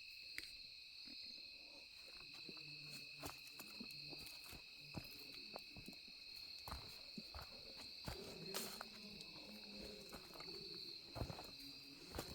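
Faint, steady chorus of insects in the forest, with scattered light clicks and crackles.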